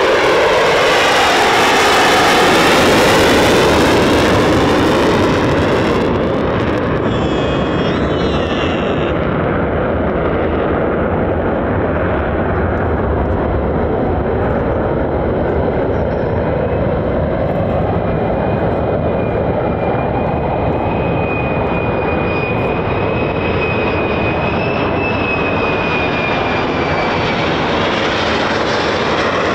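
F-35A's F135 afterburning turbofan running loud and steady as the jet takes off and climbs away, its noise sweeping in pitch as it passes in the first few seconds. From a little past the middle, a thin high howl wavers above the engine noise for several seconds: the F-35A's howl, likened to the Avro Vulcan's.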